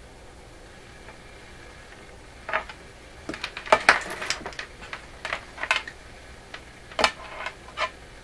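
Irregular clicks and clatter of small hard objects, such as test leads, connectors or tools, being handled on a workbench. They start a few seconds in and stop shortly before the end, over a faint steady hum.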